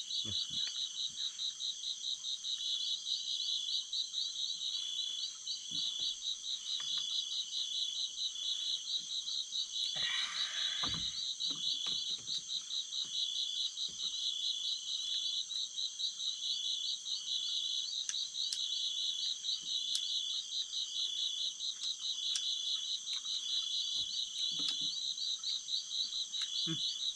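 Night chorus of insects: a fast, high, steady trill with a second call pulsing about once a second beneath it. There is a brief rustle about ten seconds in.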